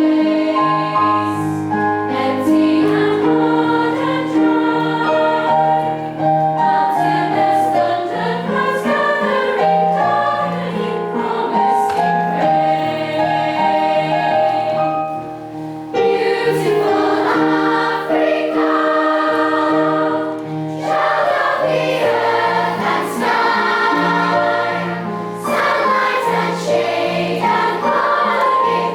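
A choir singing in harmony over a low bass part, with a brief break about fifteen seconds in before the singing comes back in full.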